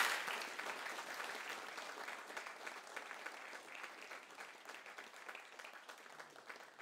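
Audience applauding at the end of a talk, the clapping slowly dying away.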